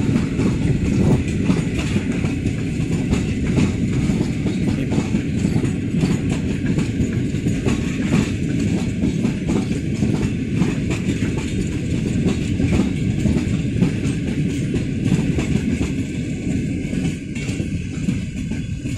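PKP Intercity passenger coaches rolling past close by: a steady rumble of steel wheels on rail, with a fast clatter of wheel clicks running through it. The sound eases off near the end.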